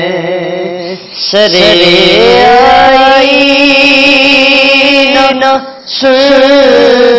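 Male voice reciting a naat, an Urdu devotional poem, sung in long held, wavering notes. It breaks briefly for breath about a second in and again just before six seconds.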